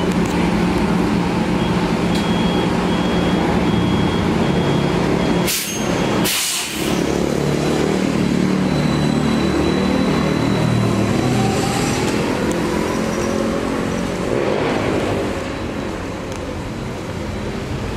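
City transit bus idling at a stop with a steady hum, then two short sharp hisses of compressed air about five and a half and six and a half seconds in as the doors close and the air brakes release, followed by a rising whine as it pulls away.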